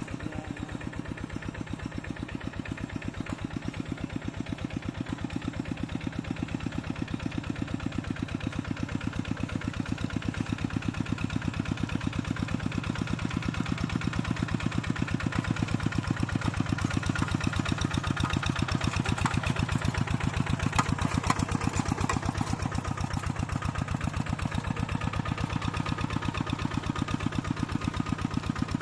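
Farm tractor engine running steadily with a fast, even chugging, growing gradually louder over the first half.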